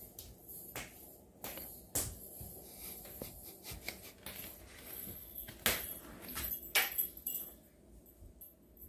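A baby crawling on a hard floor: scattered light taps and slaps of small hands on the floor, with a couple of sharper knocks past the middle.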